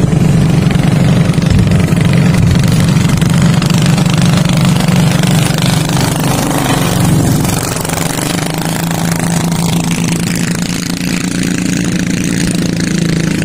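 Small motorized wooden boats (bangka) passing at speed, their engines making a loud, steady drone that cuts off abruptly near the end.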